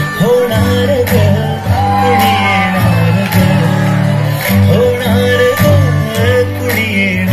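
Dance song playing loud over a hall's loudspeakers: a singing voice over a heavy bass line and a steady beat.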